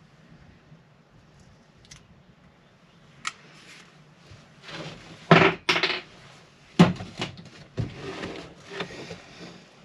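Irregular metallic clinks and knocks of hand tools working on an anchor windlass as it is taken apart. A few sharp knocks between about five and seven seconds in are the loudest.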